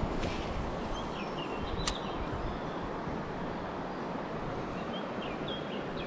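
Steady rushing of river water, with a bird chirping a few short notes about a second in and again near the end, and one sharp click just before two seconds.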